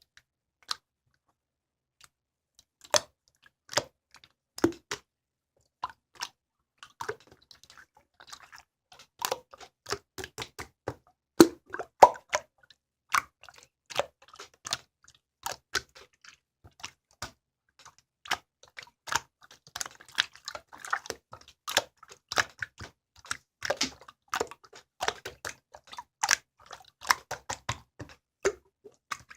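Clear slime being handled, making irregular sticky clicks and small pops, sparse at first and then coming thick and fast.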